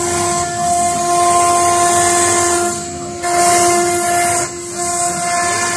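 Stone CNC router's spindle running with a steady, high-pitched whine while engraving marble, over a hiss that swells and drops away briefly twice, about three and four and a half seconds in.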